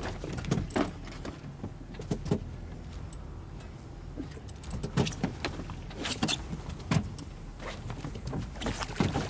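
Low steady rumble of a boat with scattered knocks and clicks of fishing tackle and gear on deck as a yellowfin tuna is reeled in alongside.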